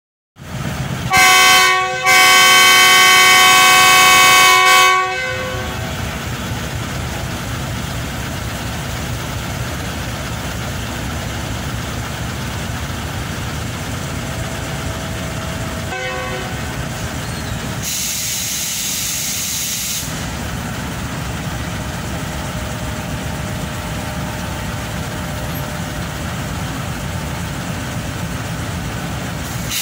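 Diesel locomotive horn sounding two blasts, a short one about a second in and a longer one of about three seconds, followed by the steady low rumble of diesel locomotive engines. About two-thirds of the way through, a burst of air hiss lasts about two seconds.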